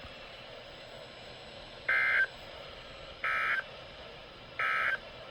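Three short bursts of Emergency Alert System SAME data tones, each about a third of a second long and about 1.3 s apart. This is the end-of-message code that closes a broadcast severe thunderstorm warning.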